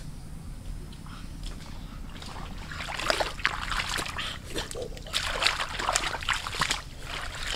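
Water splashing and sloshing in a shallow muddy puddle as someone wades barefoot through it. A run of irregular splashes begins about three seconds in.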